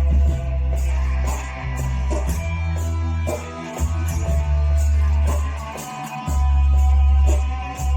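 Guitar music played through a poor recording, with a heavy sustained bass that changes note about every two seconds and a steady high ticking beat.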